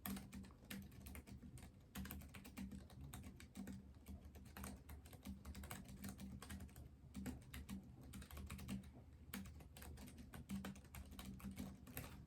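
Typing on a Keychron K7 slim optical mechanical keyboard: a steady, irregular run of light key clicks, faint.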